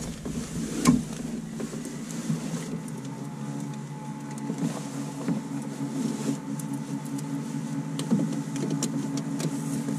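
Steady electric hum in a light aircraft's cockpit with the engine not yet running, with scattered clicks and small knocks.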